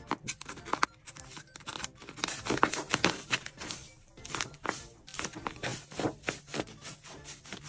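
Crinkling and crackling of a tape-wrapped paper roll-cake squishy being squeezed and pressed in the hands, in quick irregular crackles, over background music.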